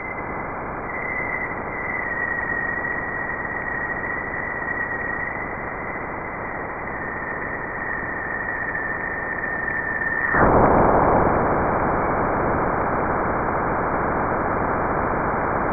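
Jupiter's decameter radio emission picked up by a shortwave radio receiver, heard as a steady static hiss with a faint whistling tone. About ten seconds in, the whistle drops out and the hiss gets louder.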